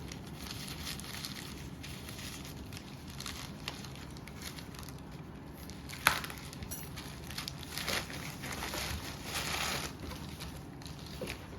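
A small retail package being opened by hand: scattered rustling and crinkling of packaging, with a sharp click about six seconds in and a denser stretch of rustling near the end.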